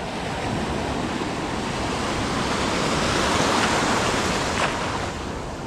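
Shallow beach surf: a breaking wave washes in, its rush swelling to its loudest three to four seconds in, then easing.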